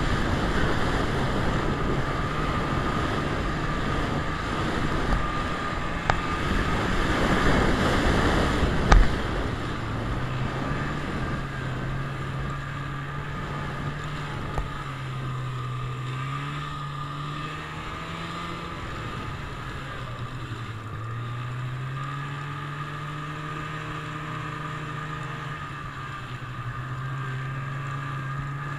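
Snowmobile engine running under way, heard from the rider's seat, with a heavy rushing noise over it for the first ten seconds or so. After that the engine note rises and falls again and again as the throttle varies, over a steady higher whine; a single knock comes about nine seconds in.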